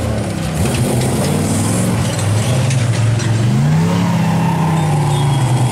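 Off-road race buggy engines revving hard under full throttle as the buggies climb a dirt hill. The engine pitch dips early on, then climbs about three and a half seconds in and holds high.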